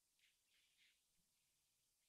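Near silence: faint hiss of the recording between spoken phrases.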